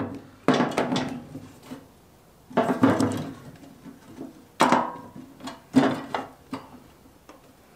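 A handful of separate knocks and clanks as metal exhaust pipes, aluminum angle pieces and hose clamps are handled and shifted on a workbench. One knock about halfway through leaves a short metallic ring.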